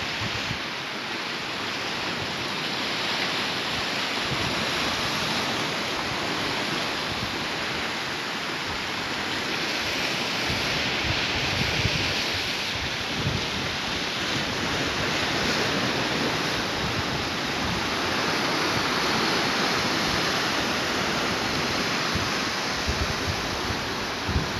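Sea surf washing over and around shoreline rocks in a steady rush that gently swells and eases, with wind buffeting the microphone.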